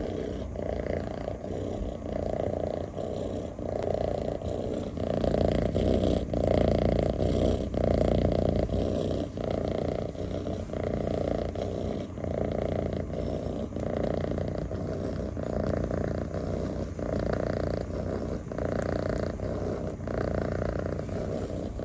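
Calico cat purring loudly and close up, a steady rumble that swells and eases with each breath, about once a second, while it is scratched under the chin.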